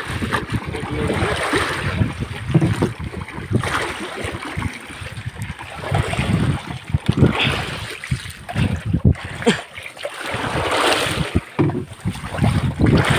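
Sea water rushing and splashing around the bamboo outrigger of a boat on open water, rising and falling in irregular surges, with wind buffeting the microphone.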